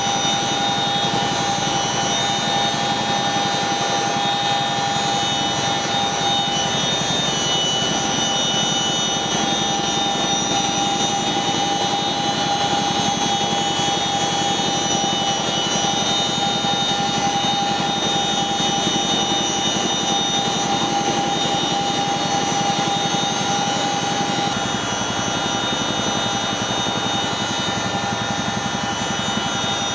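Boeing CH-47 Chinook's twin turbine engines and tandem rotors running steadily, heard from inside the cabin at the open cargo-hook hatch. A constant turbine whine with several steady high tones sits over a dense rumble, getting a little quieter about 25 seconds in.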